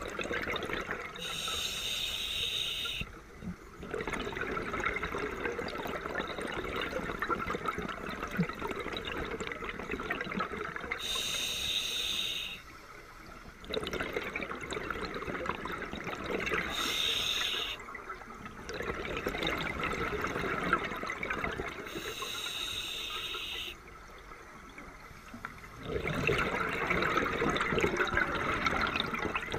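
Scuba diver breathing through a regulator: a short hissing inhale, then a long spell of bubbling as the exhaled air leaves the exhaust valve, four breaths in all.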